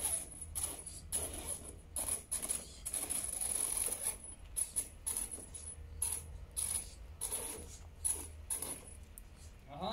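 Radio-controlled Jeep crawler climbing over loose stone slabs and gravel: irregular clicks, knocks and scrapes of its tyres and chassis on the rocks.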